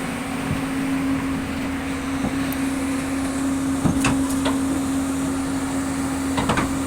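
Excavator's diesel engine running steadily, with a few sharp knocks and clanks, the clearest about four and six and a half seconds in.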